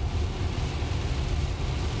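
Steady road and tyre noise with a low rumble, heard inside the cabin of a dual-motor Tesla coasting down a steep highway grade on regenerative braking.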